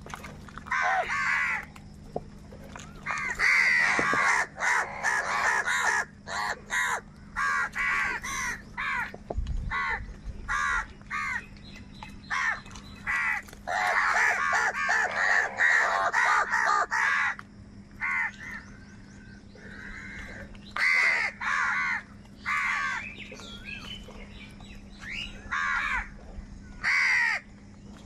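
A flock of house crows cawing while squabbling over food, many harsh caws overlapping. The calls come thickest in two long stretches, a few seconds in and around the middle, with scattered single caws between.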